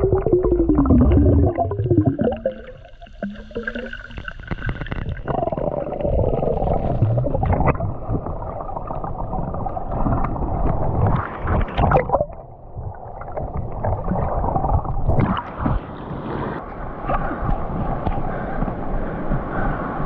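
Muffled water sloshing and gurgling around a camera that is partly underwater, with a low wavering tone that falls in pitch over the first two seconds and scattered knocks. Near the end, small waves wash onto the sand.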